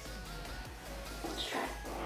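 Background music: a steady bass line under short, repeating melody notes.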